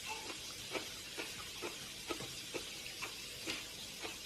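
Chewing kimchi: short, soft crunches about twice a second over a steady hiss.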